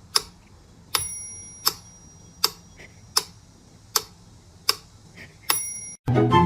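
Steady clock-like ticking, one sharp tick about every three quarters of a second, two of the ticks carrying a brief metallic ring.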